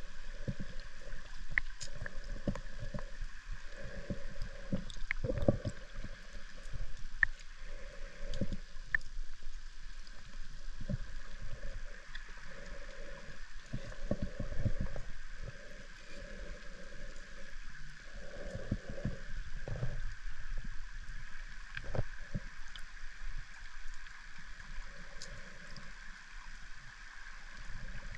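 Underwater river sound: irregular low surging and gurgling of water moving past the underwater drone, over a steady high hum, with scattered faint clicks.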